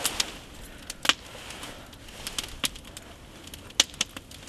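Wood campfire crackling, with sparse irregular sharp pops, the loudest about a second in and near four seconds in.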